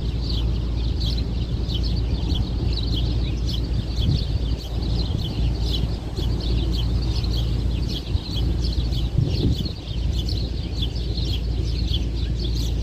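Strong wind on the microphone making a steady low rumble, with many small birds chirping continuously over it.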